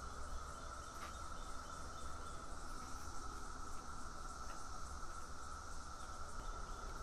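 Crickets singing in a steady evening chorus, a continuous high trill, over a faint low rumble.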